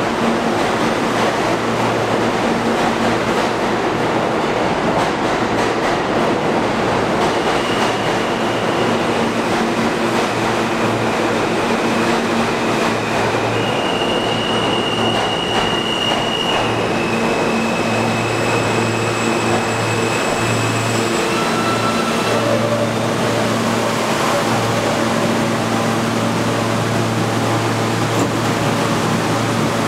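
New York City Subway train pulling into an underground station and slowing to a stop alongside the platform. A steady low hum runs under the rumble, and several high-pitched tones come and go in the first two-thirds.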